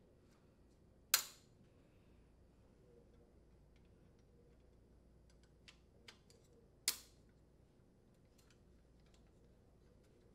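Plastic support straps of a dishwasher upper-rack adjuster snapping onto the wire rack tines: two sharp snaps, about a second in and again about six seconds later, with a few faint handling clicks between.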